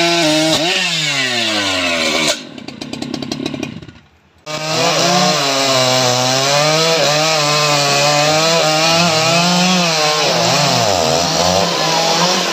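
STIHL MS 881, a big 121.6 cc two-stroke chainsaw, cutting through a teak log at full throttle; about half a second in the revs fall away. About two seconds in the sound drops to a slow idle with separate firing strokes that fades nearly to silence, and from about four and a half seconds chainsaws are cutting at full throttle again, the revs wavering up and down as the bar loads in the wood, with a second saw running alongside.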